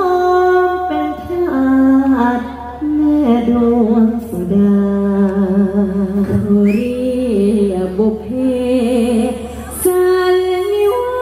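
A woman singing a slow Thai song into a handheld microphone over the PA, holding long notes with vibrato and sliding between them, her voice dropping to a lower register partway through.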